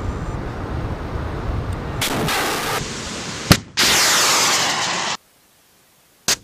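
Shoulder-fired FIM-92 Stinger missiles being launched. About three and a half seconds in comes a sharp bang, followed by the loud rushing of the rocket motor, which cuts off abruptly. Near the end there is another sharp bang from a second launch.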